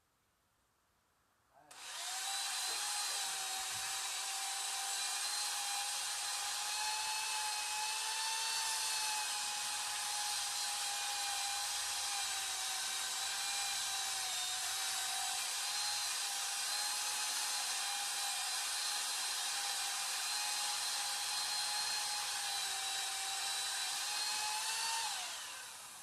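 Power tool motor starting up, running at a steady high speed for over twenty seconds, then winding down with a falling pitch near the end.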